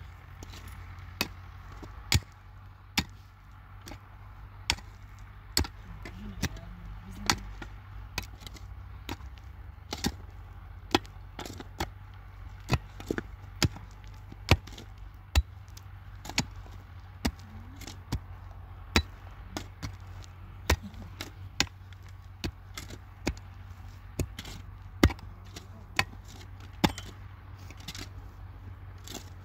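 Steady series of sharp blows from a hand tool, about one strike a second, each a short crack.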